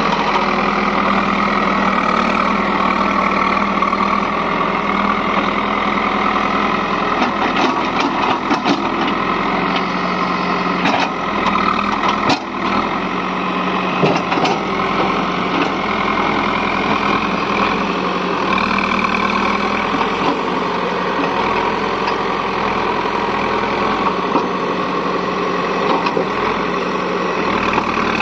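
Caterpillar 424B2 backhoe loader's diesel engine running steadily while the backhoe digs, with a cluster of sharp cracks and knocks from the bucket working through brush and earth about a third of the way through.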